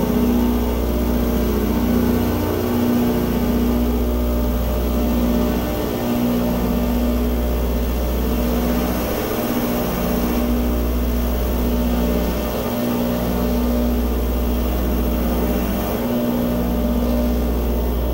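Loud electronic drone from a live experimental performance: a deep hum that dips briefly about every three seconds, with pulsing, buzzing tones layered above it.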